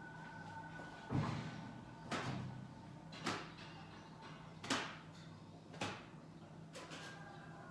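Laundry and a laundry basket being handled: a soft thump about a second in, a rustle, then four short, sharp knocks spaced roughly a second apart. A faint steady hum runs underneath.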